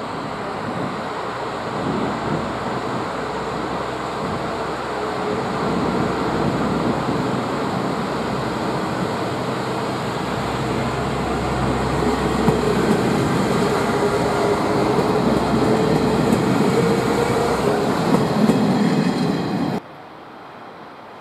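JR Kyushu KiHa 125 diesel railcar moving slowly along the station track, its diesel engine and wheels on the rails growing steadily louder as it comes closer. The sound drops away abruptly near the end.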